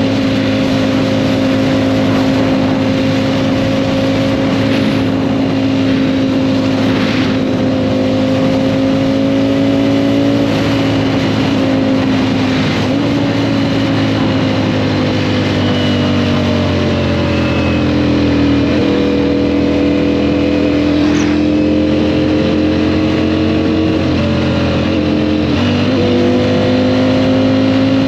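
Sport motorcycle engine and exhaust running under way at a steady engine speed. In the second half the pitch drops and rises again several times as the revs change.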